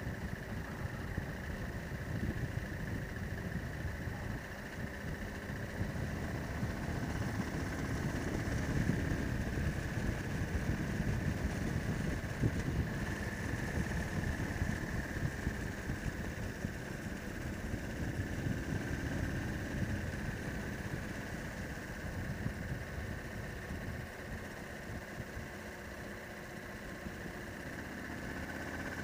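Motorcycle riding at road speed: the engine runs steadily under a rush of wind and road noise, swelling a little in the middle and easing slightly near the end.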